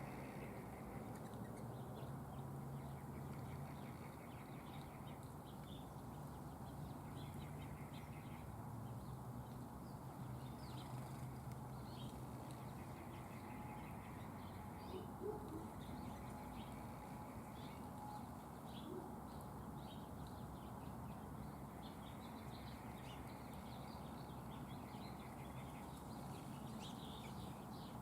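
Small birds at a feeder chirping faintly and intermittently, short high calls scattered throughout, over a low steady background drone that comes and goes.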